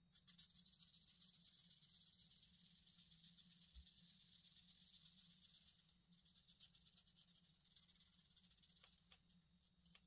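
Faint scratching of a felt-tip marker rubbed back and forth on paper while colouring in. It is steady for the first five or six seconds, then turns lighter and patchier.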